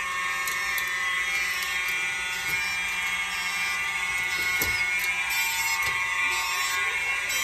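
Simplex 4903-9219 fire alarm horn strobes sounding steadily, a continuous many-toned horn, with the system still in alarm during a test. A few faint clicks sound over it.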